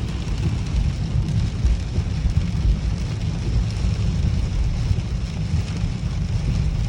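Heavy rain falling steadily, with a strong deep rumble underneath that does not let up.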